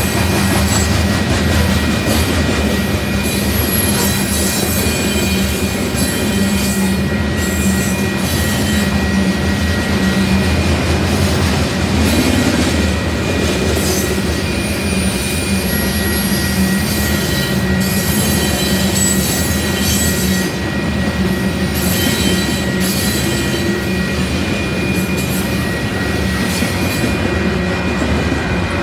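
Freight train of loaded covered hopper cars rolling past at speed: a steady, loud rumble of steel wheels on rail with scattered clicks, and a thin high squeal that fades in and out.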